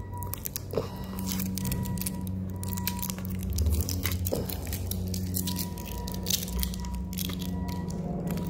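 Stiff plastic packaging crackling, crunching and scraping as hands work the wire ties loose and free a small toy-like drone from its plastic tray and backing card.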